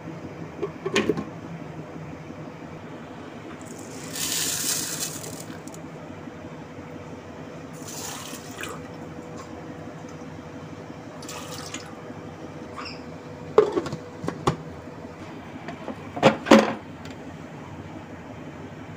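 Ingredients going into a blender jar: a few short hissing pours, about a second each, and several sharp knocks and clicks as the jar is handled, over a steady low hum.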